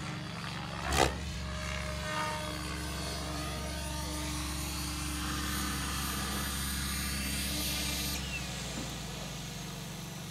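Radio-controlled model helicopter flying, its rotor and motor giving a steady whine, with a sharp thump about a second in. The sound drops about eight seconds in as the helicopter comes down to land.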